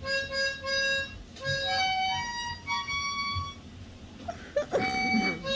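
A simple tune in a reedy, harmonica-like tone, heard off a home videotape through a TV speaker: a short note repeated several times, then a few higher notes in turn. A short noisy burst cuts across it near the end.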